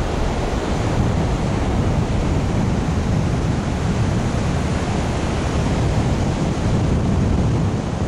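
Wind buffeting the microphone over the steady rush of ocean surf breaking on a sandy beach.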